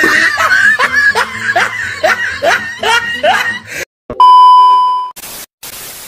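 Laughter in quick rising strokes, about eight in three and a half seconds. Then a short dropout, a steady test-pattern beep lasting about a second, and a hiss of TV static.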